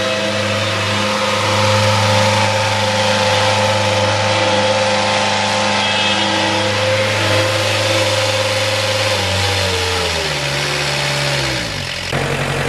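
Zero-turn mower's diesel engine running steadily at full throttle while the mower drives. Over the last few seconds its pitch sinks as the engine slows to a lower speed.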